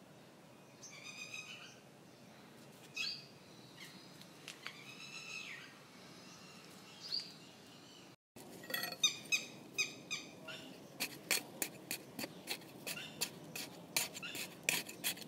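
Birds chirping in short scattered calls. Then, after a cut, a small hand hoe (khurpi) chops into soil around a papaya plant with sharp strikes about three times a second, as the soil is loosened.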